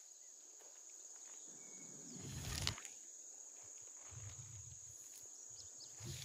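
Steady high-pitched chirring of insects in the surrounding grass, with a single knock about two and a half seconds in and a few soft low thumps as the submersible pump is handled at the concrete tank opening.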